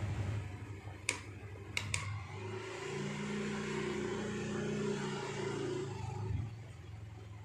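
Small DC motor driving a GT2 timing-belt reduction, running with a steady hum and whine; three sharp clicks come about one to two seconds in. Near the end, a hand grips the output shaft to load it and show the drive's torque, and the whine dips and fades.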